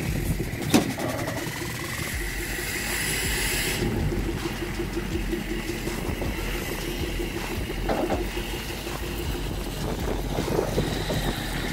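Heavy-duty pickup truck engine running as it tows a loaded gooseneck trailer slowly past, with two short knocks from the rig, one about a second in and one near 8 s.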